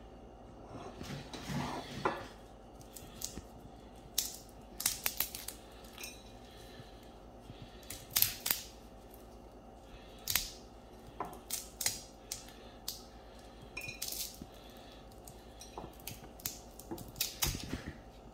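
Shell of a roasted chestnut cracking and crackling as it is peeled by hand: irregular sharp snaps and crunches, with bits of shell clicking onto a plate.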